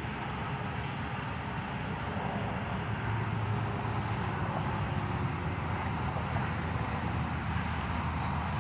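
Steady outdoor background noise, a low rumble with hiss and no siren sweep.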